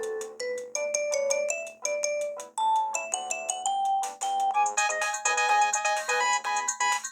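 Polyphonic ringtone melodies from a Vodafone 255 mobile phone, a tune of short, sharply struck electronic notes. It breaks off briefly about two and a half seconds in, and a different, busier ringtone starts.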